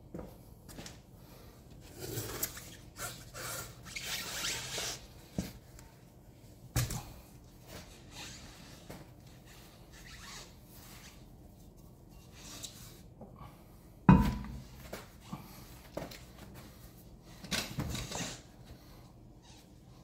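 A steel-rimmed winter tire being handled and fitted onto a car's wheel hub: scraping and rustling, a few knocks, and one sharp, loud knock of the steel wheel against the hub about fourteen seconds in.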